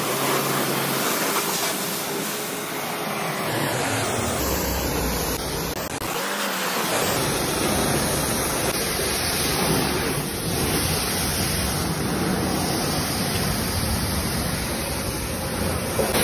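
Pressure washer spraying a jet of water onto a pickup's wheel and bodywork: a continuous, steady rushing hiss of water.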